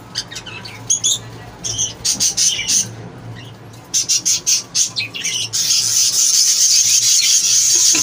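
Budgerigars chirping and squawking in short bursts. About five and a half seconds in, a loud continuous rasping chorus of budgie chicks begging starts up from the clay-pot nest.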